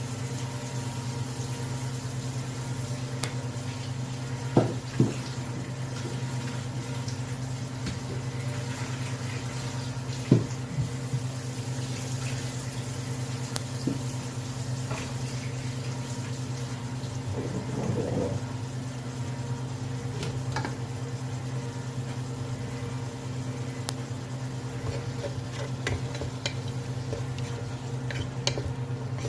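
Kitchen cooking sounds: a steady low hum under a few sharp knocks of a utensil against cookware, and a short stretch of scraping or bubbling near the middle.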